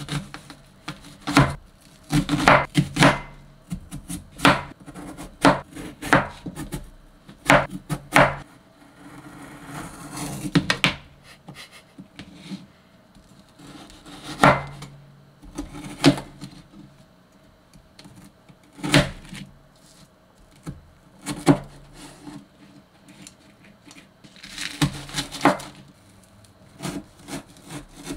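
Kitchen knife cutting an onion and then a Korean green onion (daepa) on a plastic cutting board: irregular sharp knocks of the blade hitting the board, with a few longer slicing strokes.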